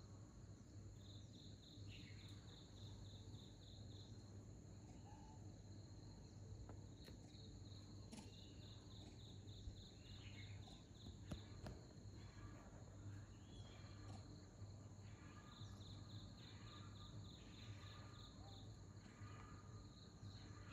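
Faint insect chirping: trains of rapid, high, evenly spaced pulses, about four a second, three times, over a low steady hum.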